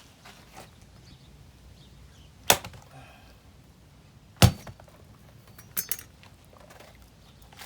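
Sharp chopping blows: two hard strikes about two seconds apart, then two lighter quick ones.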